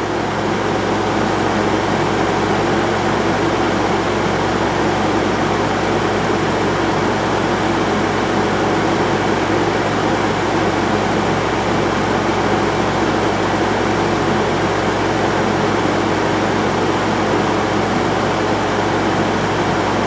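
Haier ESAQ406T Serenity Series 6,200 BTU window air conditioner running with its fan on high and its compressor on: a steady rush of air over a low, even hum. Its evaporator coil had iced up from too little airflow on low fan and is now defrosting on the high fan speed.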